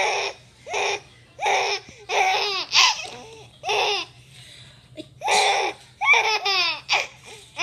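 Small child laughing in repeated bursts of giggles, about eight separate peals, at fake sneezes.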